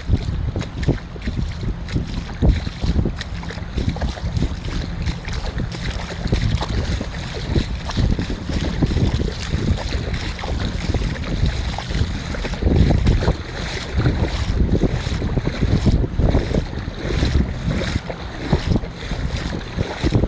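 Wind buffeting the microphone with a heavy, gusty rumble, over the steady hiss of surf on a beach.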